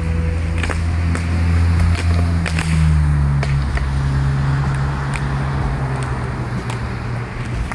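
A nearby engine runs with a steady low drone that drops in pitch about three seconds in. Over it come scattered short clicks and knocks of inline skates on concrete.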